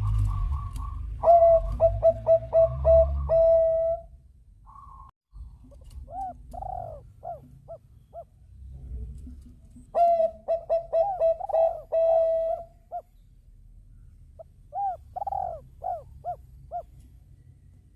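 Zebra dove (perkutut) cooing: two bouts of fast, staccato repeated coos, one starting about a second in and another about ten seconds in, with shorter series of rising-and-falling coos between them.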